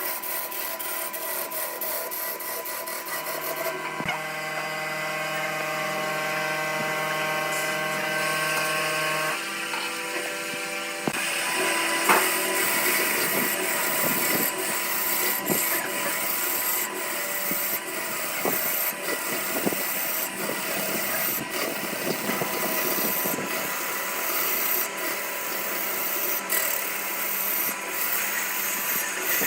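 A woodworking power tool running, with the motor's steady hum and the scrape and rub of tool on wood. The sound changes abruptly about 4 and 11 seconds in, and in the later part sharp ticks recur every second or two.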